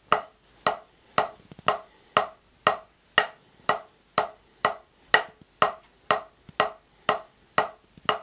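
Wooden drumsticks striking a rubber practice pad in slow, even single strokes, about two a second, each with a short woody ring. The strokes come from a loose, open grip played from the wrist, letting each stick rebound freely.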